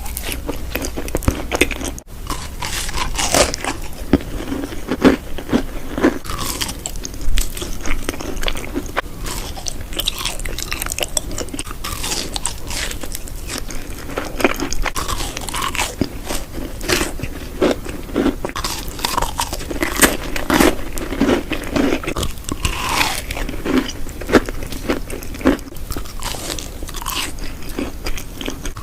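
Close-miked eating: a person biting into crunchy food and chewing, with a run of irregular crunches and wet mouth sounds.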